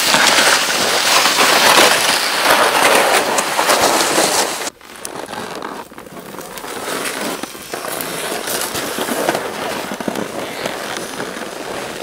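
Dense crackling crunch of cold, packed snow underfoot and under a toboggan being hauled. It is loud for the first few seconds, cuts off abruptly, then continues quieter.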